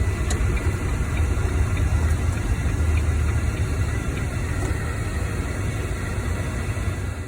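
Semi-truck diesel engine running steadily, a low rumble heard from inside the cab.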